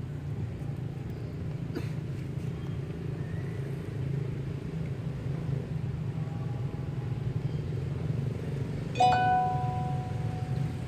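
A steady low rumble throughout. About nine seconds in, a sudden click is followed by a level, held tone lasting under two seconds, the loudest sound here, with a fainter, similar tone a few seconds earlier.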